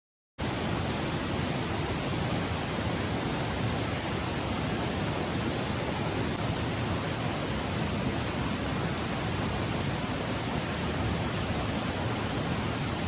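Steady, even rushing noise with no rhythm or tone, cutting in abruptly just after the start.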